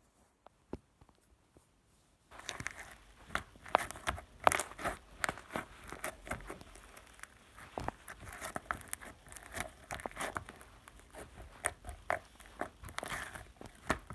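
Near silence, then about two seconds in a dense, irregular run of sharp crunchy clicks and crackles, like biting and chewing, that continues on.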